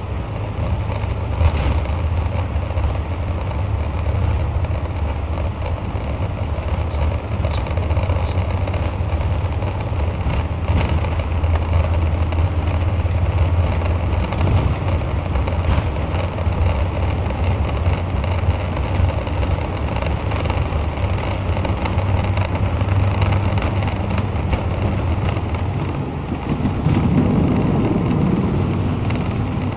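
Airbus A380 cabin noise during the takeoff roll: a steady low rumble of the jet engines and the wheels on the runway, with a few light knocks. It grows louder and fuller near the end.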